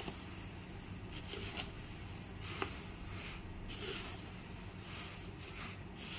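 Faint scattered clicks and knocks over a steady low hum, the sharpest a single click about two and a half seconds in.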